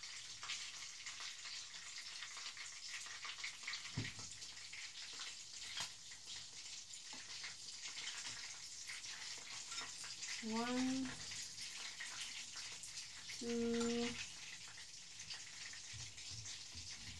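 Breaded chicken drumsticks sizzling steadily in hot sunflower oil in a frying pan as they are lifted out one by one with a fork. One light knock about four seconds in.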